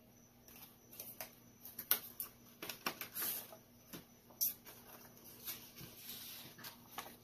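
Paper and plastic packaging rustling, with small clicks and crinkles as a clear stamp on its plastic carrier sheet is handled and laid onto a sheet of copy paper; the sharpest clicks come about two and four and a half seconds in.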